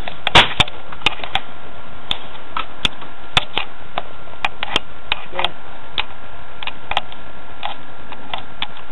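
A sharp crack about half a second in, fitting a pellet air rifle being fired, followed by irregular light clicks and knocks over a steady hiss.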